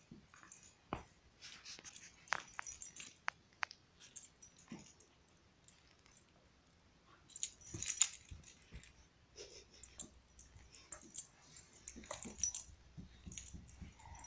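A dog chewing and mouthing a plush toy: faint scattered clicks and rustles. They are busiest about eight seconds in and again near the end.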